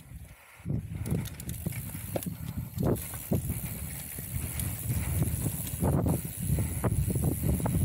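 Mountain bike riding a rough trail: a steady rumble with frequent knocks and rattles from the bike over bumps.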